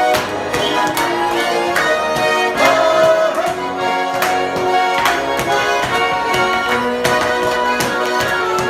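Russian garmon (button accordion) playing a folk tune in full chords.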